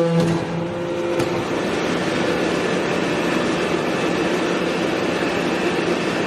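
Hydraulic forging press running: a steady mechanical noise from its motor and pump, with a hum that fades about a second in.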